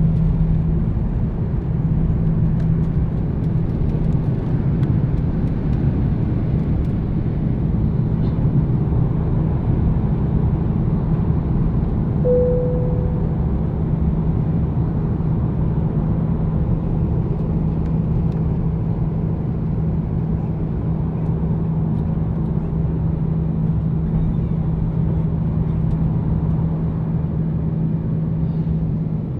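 Airliner's jet engines at takeoff power, heard from inside the cabin over the wing: a loud, steady rumble with a constant low hum through the takeoff and initial climb. A short clear tone sounds about twelve seconds in.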